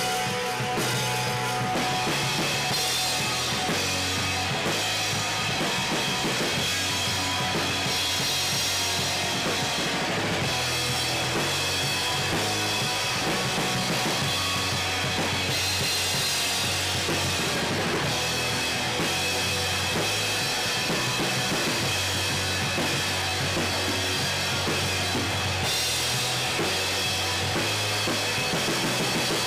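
A live rock band playing, heard close to the drum kit: loud drums with bass drum, snare and ringing cymbals, over electric guitars and bass guitar, with steady loudness throughout.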